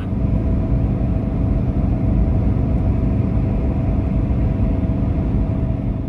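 Steady road and engine noise of a vehicle driving at highway speed: a heavy low rumble with a faint steady hum above it.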